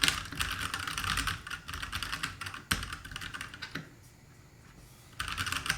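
Typing on an Ant Esports MK1200 Mini 60% mechanical keyboard with red switches: a rapid clatter of keycaps bottoming out, with no click from the switches themselves. The typing stops briefly about four seconds in and starts again near the end.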